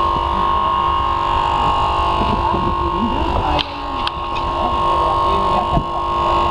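Steady whining hum of a running hydraulic rescue pump powering the extrication tools, with three sharp clicks in the second half.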